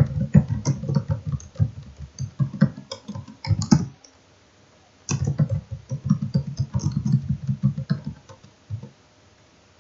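Typing on a computer keyboard: a quick run of keystrokes, a pause of about a second about four seconds in, then a second run that stops about a second before the end.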